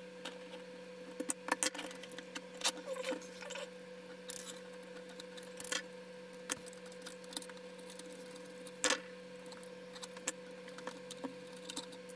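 Scattered small clicks and taps of a hot-swap drive tray's metal and plastic parts being handled and fitted back together, over a faint steady hum.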